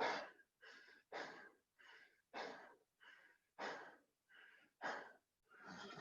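A person panting hard from the exertion of burpees: fast, heavy breaths, a louder exhale about every second with softer breaths in between.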